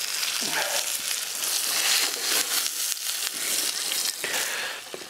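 Meat sizzling with butter on a grill: a steady frying hiss with scattered crackles and pops.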